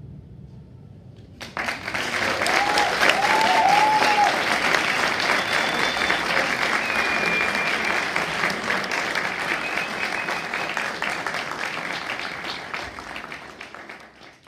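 A low drum resonance dies away, then about a second and a half in the audience bursts into applause with a few whoops and whistles. The applause holds steady, then fades out near the end.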